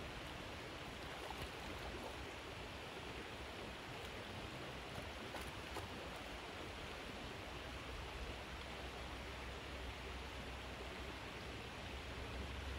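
Steady rushing of creek water, with a goldendoodle paddling through it. A low rumble comes in about halfway through.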